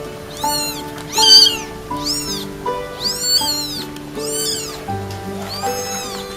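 A cat meowing again and again, about six high, arching meows, over background music with held notes.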